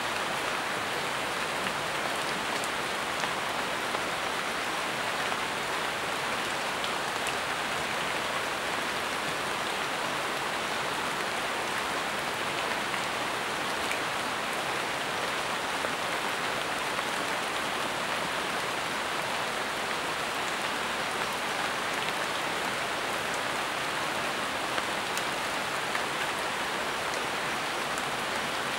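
Steady rain falling on leaves, an even hiss with now and then a single louder drop.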